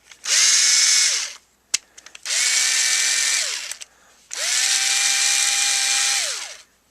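Ryobi HP53L 4-volt lithium-ion screwdriver running three times in short bursts, each spinning up and winding down, the last the longest, with a sharp click between the first two. Its gears are freshly greased, but it still makes a noise that the owner thinks is in the motor.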